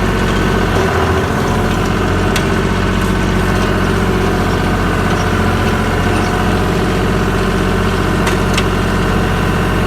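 Tractor engine running steadily while driving an Allis-Chalmers Roto-Baler, with a few sharp clicks from the machinery about two seconds in and twice near the end.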